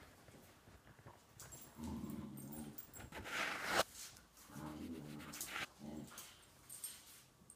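A German shorthaired pointer and a dachshund puppy play-fighting, with play growls in two stretches and a loud rough burst of snarling or scuffling about halfway through.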